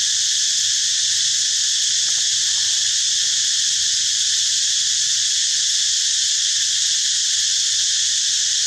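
Loud, steady, high-pitched chorus of insects droning without a break.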